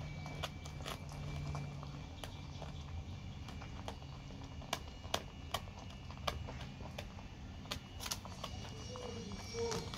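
Dog chewing a raw narrow-barred Spanish mackerel head, its teeth crunching through the bones in irregular clicks and snaps.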